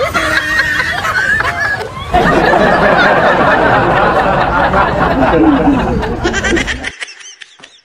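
A crowd of people laughing and talking over one another. The noise thickens suddenly about two seconds in and fades away near the end.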